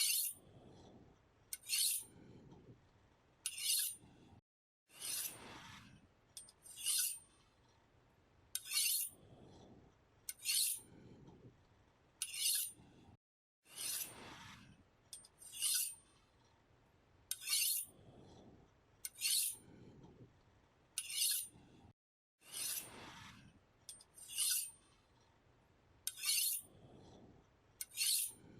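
A knife blade being sharpened: short, bright scraping strokes about every two seconds, with a longer drawn-out stroke every nine seconds or so and softer rubbing between strokes.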